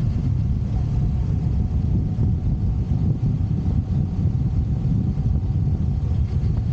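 Motorcycle engine running steadily while riding: a dense, even low rumble with a faint steady tone above it.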